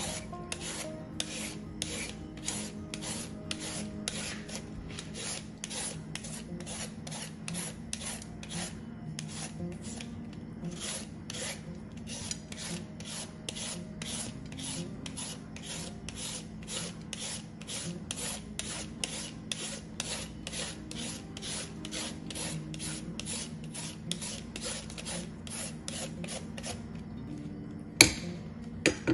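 Julienne peeler shredding a green mango, a rasping scrape with each stroke, about two strokes a second. The strokes stop shortly before a sharp knock near the end.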